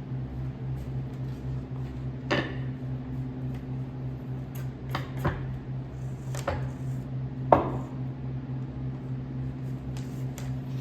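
A steady low hum with a handful of sharp knocks and clicks, as of hard objects being set down or handled; the loudest knock comes about seven and a half seconds in.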